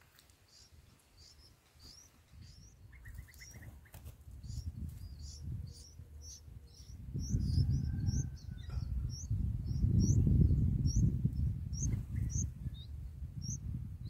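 Bulbul nestlings begging: a steady series of short, high chirps, about two or three a second. Underneath, a low rumble builds from about three seconds in and is loudest in the second half, at times louder than the chirps.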